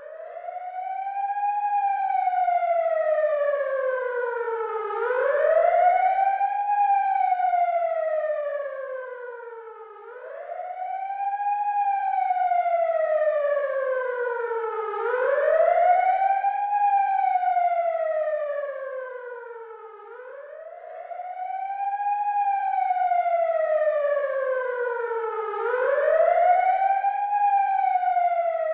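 Ambulance siren wailing: each cycle rises quickly in pitch and then falls slowly, repeating about every five seconds, growing louder and softer with each sweep.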